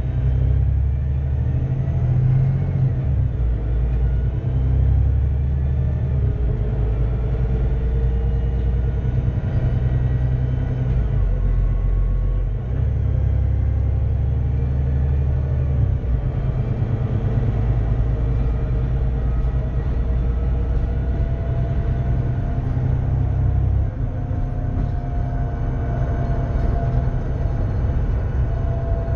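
VDL DB300 double-decker bus's Cummins ISBe 6.7-litre six-cylinder diesel running under way through its Voith DIWA automatic gearbox. A heavy low rumble changes in strength a few times, with faint whines that slowly rise in pitch as the bus gathers speed.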